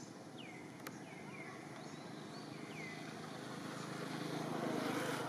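A motor vehicle's engine hum, growing louder toward the end as it approaches. Above it, short high chirps that fall in pitch repeat about once a second.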